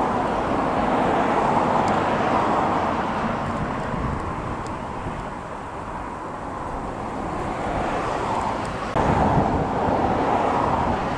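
Outdoor ambient noise: a steady rushing that swells and fades slowly, with a sudden jump in level about nine seconds in.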